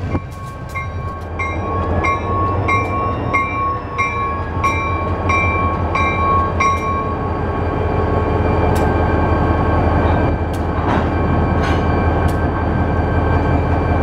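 EMD GP40 diesel locomotive moving slowly with its bell ringing about ten strokes, evenly spaced, stopping about seven seconds in. Under it runs the steady low rumble of the diesel engine, which grows louder as the locomotive comes close. Scattered light knocks come in the second half.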